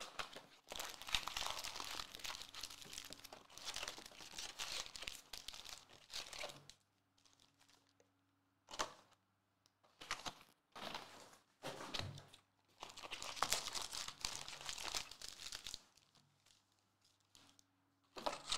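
Foil-wrapped trading card packs and their cardboard hobby box being handled: packs crinkling and rustling as they are lifted out and stacked. The sound comes in two long stretches with a few short bursts between.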